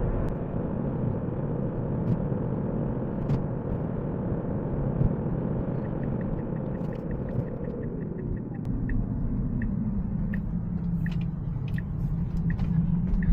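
Road and tyre noise inside a Tesla electric car's cabin, a steady rumble that drops in pitch as the car slows around the middle. From about six seconds in, a light regular ticking of the turn signal runs as the car turns.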